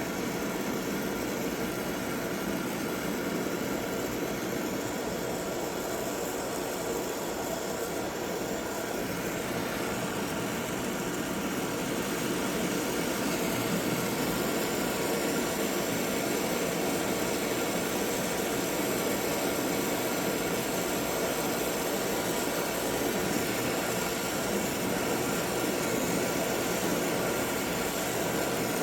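Brazing torch flame running steadily with a constant hiss while it heats the pipe and fittings for brazing. It gets slightly louder about twelve seconds in.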